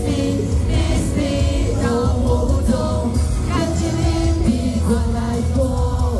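A male singer singing live into a handheld microphone over loud amplified pop music with a heavy bass, the melody held on long notes.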